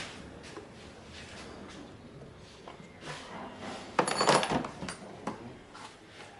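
Metal tools and parts being handled during engine work: scattered light clicks, then a brief metallic clatter with a ringing tone about four seconds in.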